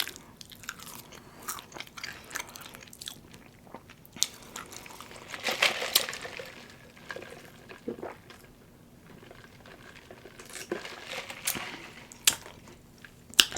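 Close-miked chewing and crunching of a chicken biscuit sandwich, with small mouth clicks throughout and two louder crunchy stretches, about halfway through and near the end.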